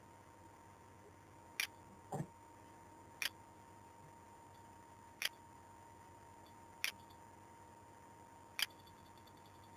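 Computer mouse clicking: five single sharp clicks one and a half to two seconds apart, with one duller knock about two seconds in. A faint steady high hum and hiss lie underneath.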